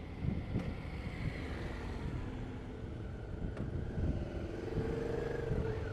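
Motorcycle engine running, with an irregular low rumble; a steady whine joins near the end.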